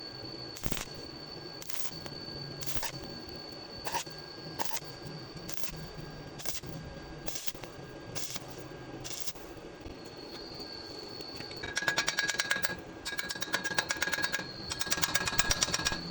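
Stick welding arc crackling, the fast irregular crackle starting about twelve seconds in, pausing briefly, then running again. Before it, a faint steady high whine with a sharp tick about once a second.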